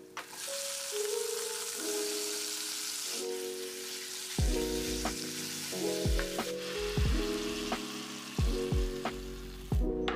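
Raw pork soft-bone pieces sizzling as they drop into hot oil and a fried garlic, pepper and coriander-root paste in a nonstick pan. From about four and a half seconds in, a spatula stirs them, with a run of sharp knocks and thuds against the pan. The sizzle cuts off suddenly near the end.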